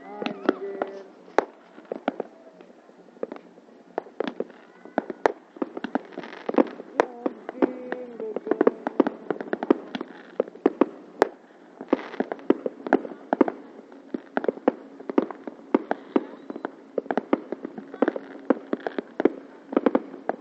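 New Year fireworks going off: many sharp bangs and cracks at irregular intervals, coming thicker from about eight seconds in.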